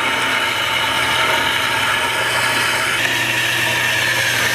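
Baileigh BS250M horizontal band saw running with its coolant on, the bimetal skip-tooth blade cutting through metal stock as the arm feeds down: a steady motor hum under the rasp of the cut. About three seconds in, the pitch of the cutting noise shifts higher.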